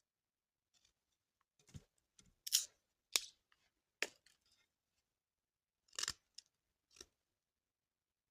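Handling and cutting noises: about six short, sharp clicks and snips at uneven intervals, the loudest two coming close together about two and a half to three seconds in.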